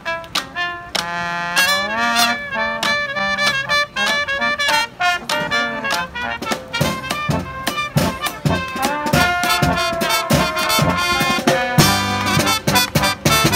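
Brass marching band playing a tune: trumpets, trombones and sousaphones over the beat of snare and bass drums.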